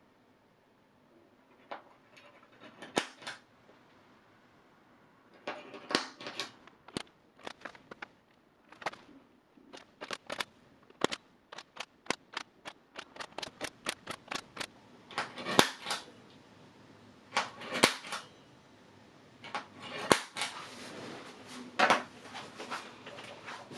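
A run of sharp, irregular clicks and knocks of hard parts being handled and set down: a few at first, then coming thick and fast from about five seconds in.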